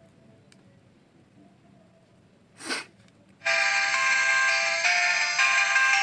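Itel Ace 2 Lite keypad phone playing its power-on melody through its loudspeaker, a bright run of ringtone-like notes starting about three and a half seconds in, after a brief rustle just before. The tune is the sign that the phone boots with its newly soldered display.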